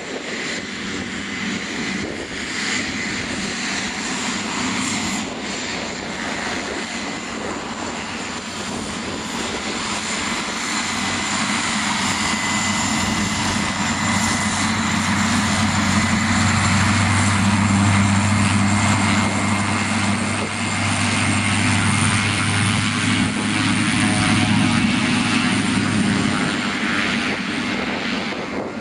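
Cessna 208B Grand Caravan's PT6A turboprop running at taxi power: a steady turbine whine over the propeller drone. It grows louder through the middle as the aircraft taxis close by, and eases off near the end.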